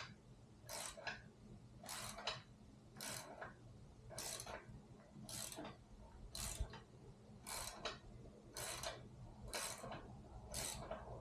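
Hand ratchet wrench clicking in even back-strokes, about one a second, as a long, tight bolt is backed out.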